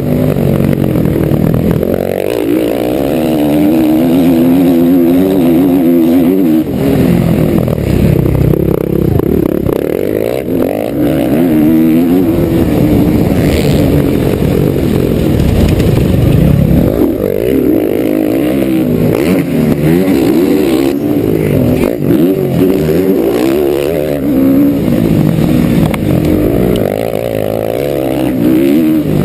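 Motocross bike engine heard from onboard, loud and continuous, its pitch repeatedly climbing and dropping as the throttle is opened and closed around the track.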